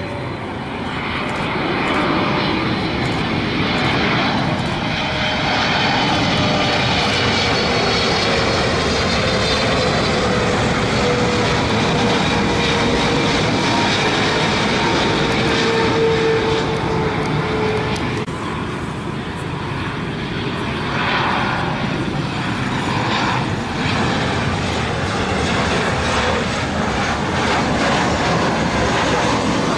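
Boeing 777-300ER's GE90 turbofans on final approach: a loud, steady jet engine noise with a whine that slowly falls in pitch as the aircraft passes. After a dip about 18 seconds in, a Boeing 737-800's engines are heard on approach.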